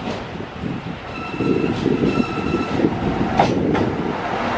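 JR Hachinohe Line KiHa E130 diesel railcar pulling into the platform: a steady low rumble of engine and wheels, two short high tones about a second in, and sharp rail-joint clicks near the end. A brake squeal sets in as the train slows.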